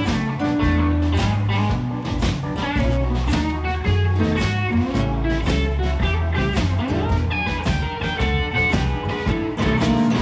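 Live blues-rock band playing an instrumental passage between vocal lines: acoustic and electric guitars over electric bass and a steady drum beat.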